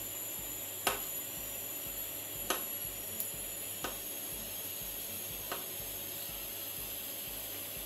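A spoon clicking lightly against the pan of cheese-and-cream sauce four times, spaced a second or two apart, over a steady faint hiss.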